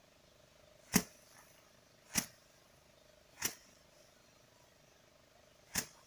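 Bundles of harvested rice stalks beaten against a stone slab to thresh the paddy by hand, knocking the grain loose. There are four sharp thwacks about a second apart, with a longer gap before the last one, and the first is the loudest.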